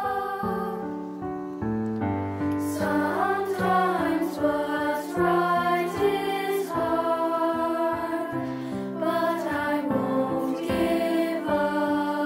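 Middle-school chamber choir singing, a virtual choir of separately recorded young voices mixed together, holding sustained notes that change every second or so.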